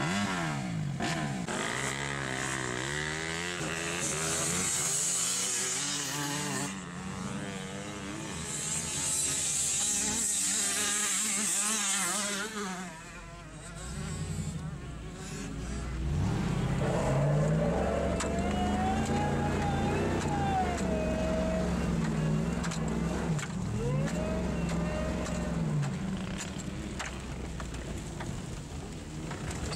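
Motor engines revving up and down, their pitch rising and falling, heard from inside a car; several engines overlap in the first half, and a high hiss comes in twice there.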